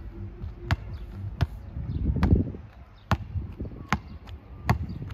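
A basketball bouncing on an outdoor hard court as it is dribbled, with six sharp slaps about 0.8 seconds apart. A low rumble swells around two seconds in.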